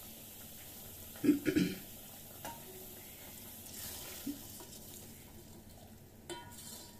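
A spoon stirring rice and water in a cooking pan, with a short cluster of knocks and scrapes about a second in and a few lighter clicks later, over a steady faint hiss.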